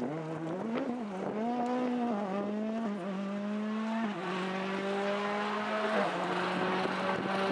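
Ford Fiesta WRC rally car's 1.6-litre turbocharged four-cylinder engine pulling hard as it drives away on a stage. It is held at high revs, and its pitch drops at each of several upshifts.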